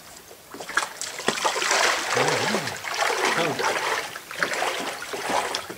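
Water splashing, starting about half a second in and continuing, with a faint voice underneath.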